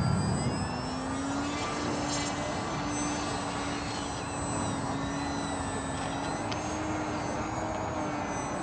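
ParkZone VisionAire RC 3D plane's electric motor and propeller running in flight overhead, a steady hum that drops a little in pitch about half a second in and then holds.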